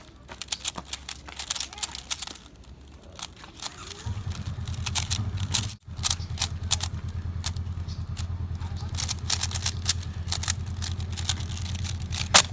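3x3 Rubik's speedcube being turned fast during a solve: rapid, irregular clicking and clacking of the plastic layers. A low steady hum comes in about four seconds in.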